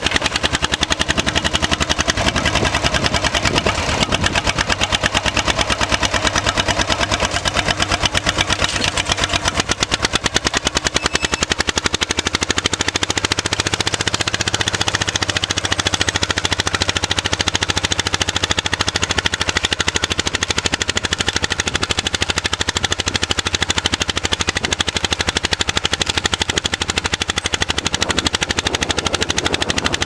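John Deere Model MC crawler dozer's two-cylinder engine working under load as the crawler ploughs rough ground, its exhaust a fast, even popping beat.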